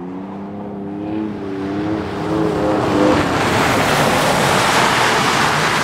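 Pickup truck engine humming steadily on a snow-covered road. About three seconds in, a louder, even rushing of tyres on snow and slush takes over.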